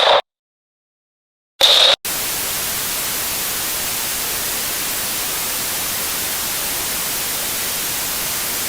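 A broadcast signal dropping off air: a short harsh buzz cuts off into about a second and a half of dead silence, a second brief buzz, then loud, steady white-noise static, the hiss of a lost transmission.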